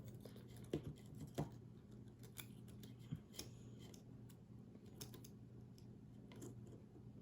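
Faint scattered clicks and scrapes of small tools and fingers working on an opened iPhone 5's internal cable connectors, with two louder clicks about a second in, over a steady low hum.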